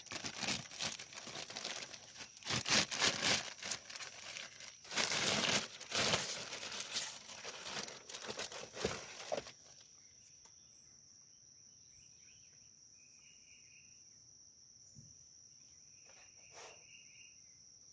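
Plastic packaging crinkling and rustling in irregular bursts as the shotgun is unwrapped, stopping about halfway through. Then only a steady high insect trill remains, with a few faint chirps.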